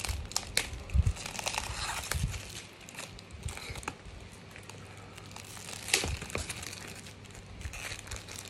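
Clear plastic wrapper on a paperback manga being torn and peeled off by hand, crinkling with sharp crackles. The crinkling is busiest in the first few seconds, eases off, then picks up again about six seconds in.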